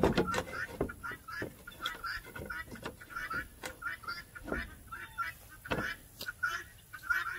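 Chickens clucking over and over in short calls, with a few sharp knocks as a plywood board is handled against the wooden door frame.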